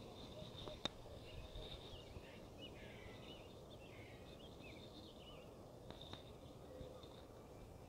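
Faint birds chirping and twittering over steady low background noise, with a single sharp click about a second in.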